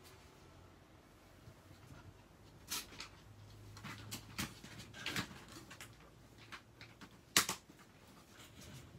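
Short knocks and rustles from a plastic dog toilet tray being handled and set down on a tarp: several scattered sharp sounds, the loudest about seven seconds in.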